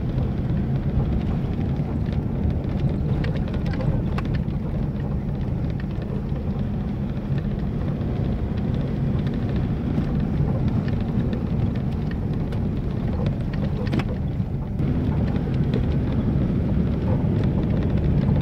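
Interior noise of a vehicle driving on a rough dirt road: a steady low rumble of engine and tyres on gravel, with occasional knocks from the bumpy surface.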